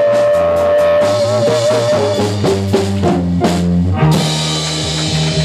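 Live band of keyboard, electric guitar, bass and drum kit playing the close of a pop song: a long held note with vibrato, then a run of short stabs and drum fills, then a final chord that rings on with cymbals from about four seconds in.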